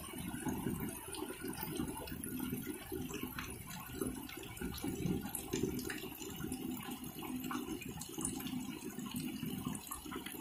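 Rain falling steadily and splashing onto wet ground and puddles, a dense low rushing with scattered drip ticks.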